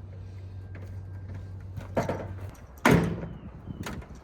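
Garage door opener motor humming steadily as it pulls on a door whose top section is braced with a strut. The hum stops about two and a half seconds in, with a loud clunk from the door about two seconds in and a louder bang just after the hum stops, then lighter knocks.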